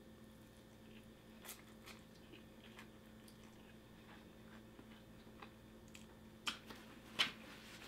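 A person quietly chewing a mouthful of sushi roll: faint, scattered wet mouth clicks, with a few sharper ones about a second and a half in and twice near the end.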